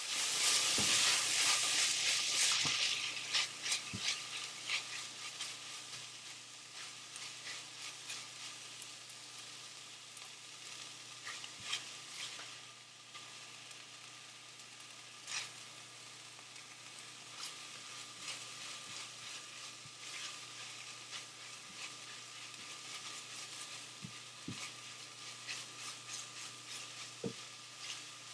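Food in a hot frying pan sizzling, with a sudden loud burst of sizzle at the start that settles over the first few seconds into a steady crackle. A spatula stirs it, with scattered clicks and knocks against the pan.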